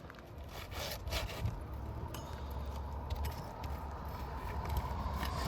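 Roofing tools scraping and clicking against asphalt shingles as a shingle is pried up and its nails worked loose, over a steady low rumble.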